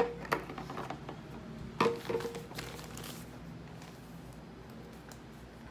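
A few light knocks and clinks of small objects being handled, one right at the start and a short cluster about two seconds in with a brief ring, then quiet room tone.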